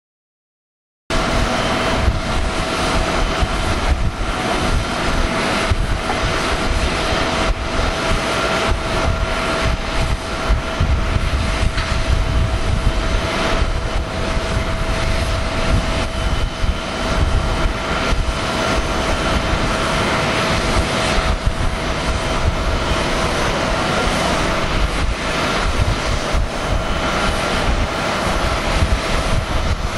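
Boeing 777-300ER's GE90-115B turbofan engines at takeoff power on the takeoff roll: a loud, steady roar with a deep rumble and a steady whine over it, cutting in about a second in.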